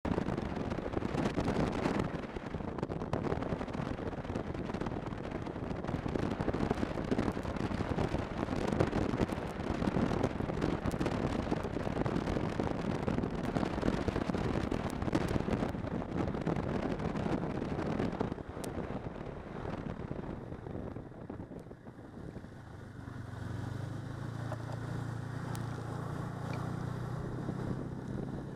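Snowmobile engine and track running at speed over snow, with wind rushing over the microphone. About three-quarters of the way through it slows and settles into a steadier, lower engine hum.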